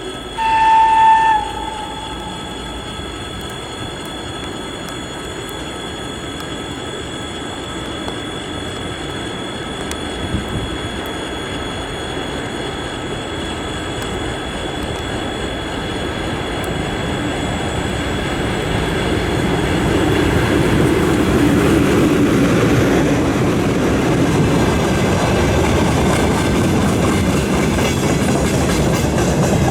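A VL10 two-section DC electric locomotive hauling a freight train. It sounds one short high horn note about half a second in. Then comes the steady running noise of the locomotive and wagons, growing louder from about the middle as the train draws near and passes.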